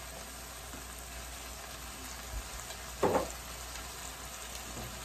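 Vegetables sizzling steadily in a hot pan of oil as a stir-fry cooks, with one brief louder sound about three seconds in.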